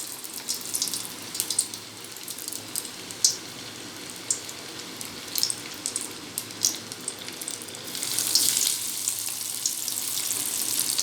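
Crumb-coated paneer fingers deep-frying in hot oil in a kadhai: a steady sizzle with scattered sharp crackles, turning louder and denser about eight seconds in.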